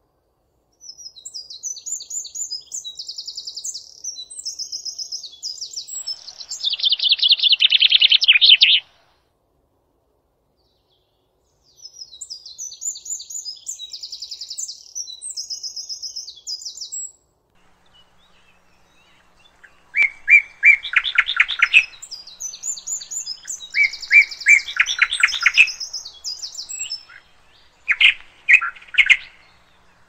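Songbirds singing: phrases of fast repeated high notes broken by short silences. About twenty seconds in, a louder, lower trilling song joins in and overlaps the high song.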